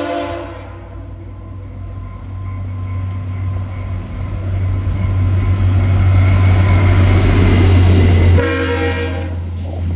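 VIA Rail passenger train passing close by, with a loud low drone from its diesel locomotive that builds as it comes near. The locomotive's air horn chord is just ending as the sound begins, then sounds again for about a second and a half near the end.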